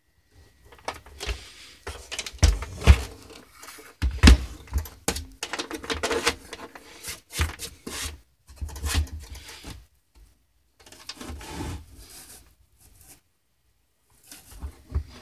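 Handling noise from a Kodak 4200 Carousel slide projector being turned and shifted on a table: irregular knocks, thumps and scrapes of its plastic housing, in bursts with short quiet gaps. The heaviest thumps come about two and a half to three seconds in and again about four seconds in.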